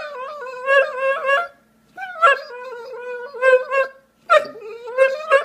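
A dog vocalizing in long, wavering whines, three bouts with short pauses between them.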